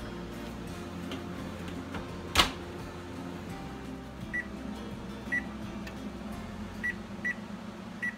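A single loud clunk from the kitchen range about two and a half seconds in, then five short, identical high beeps from the range's electronic control panel, over a steady low hum.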